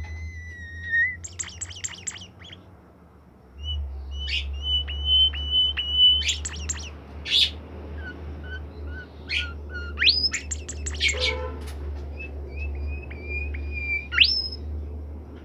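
A caged bimoli songbird singing continuously: held whistled notes broken by quick rattling trills and sharp upward-sweeping whistles. A steady low hum runs underneath.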